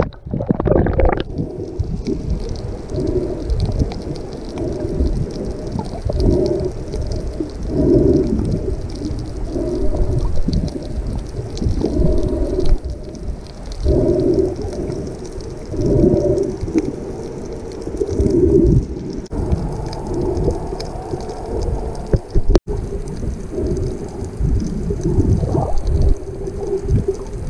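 Muffled underwater sound picked up by an action camera in a waterproof housing: a splash as the camera goes under, then low water noise that swells every second or two.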